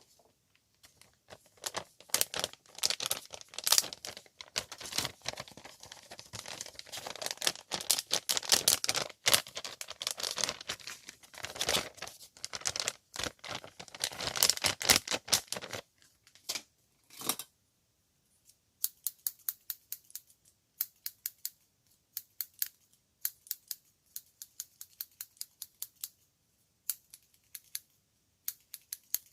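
Close-miked scissors snipping in an ASMR haircut roleplay: about sixteen seconds of dense, fast crackling snips, then after a brief pause, quick crisp snips in rapid bursts.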